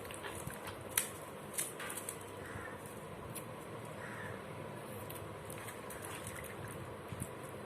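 A few sharp small clicks and snaps as green chilli stems are pulled off by hand, with a crow cawing faintly twice in the background.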